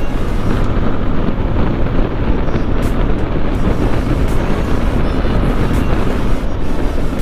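Wind rushing over an action camera's microphone on a moving motorcycle, with engine and road noise underneath; steady, without pauses or sharp events.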